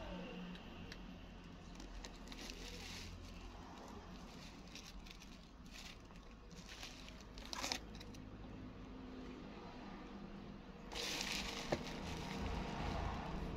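Bubble wrap and packaging crinkling and rustling as a round LED headlight is handled, in scattered short rustles. Near the end the rustling grows louder, with a sharp click as the headlight is set down into its cardboard box.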